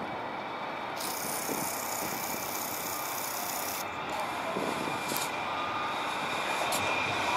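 Kansas City streetcar, a CAF Urbos 3 tram, approaching on its rails: a steady running noise with a faint high whine, growing louder toward the end.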